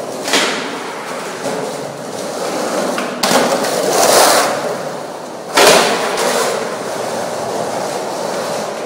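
Skateboard wheels rolling over the concrete floor of a parking garage, a steady rolling rumble. It swells louder a moment after the start and again between about three and four seconds, with a sharp, loud hit at about five and a half seconds.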